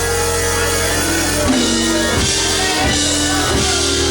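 Church band music: held keyboard chords over drums, with the chords changing every second or so.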